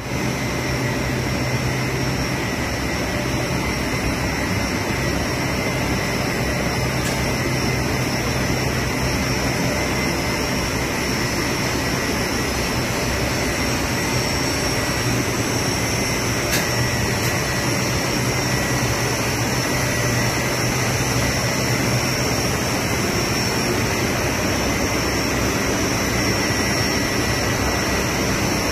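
Mono-layer blown film extrusion line running steadily: a constant machine drone with a low hum and a few steady high whines as the film runs over the rollers.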